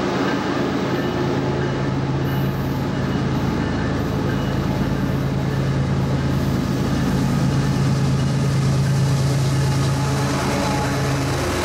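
CSX freight train's diesel locomotives approaching and passing at close range: a steady low engine drone that grows louder in the second half, joined by wheel and rail noise as the lead units go by.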